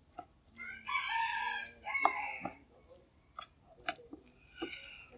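A rooster crows once, a pitched call of about two seconds starting about a second in, with a fainter call near the end. Short clinks of a metal spoon against a ceramic bowl come through while vegetable batter is stirred.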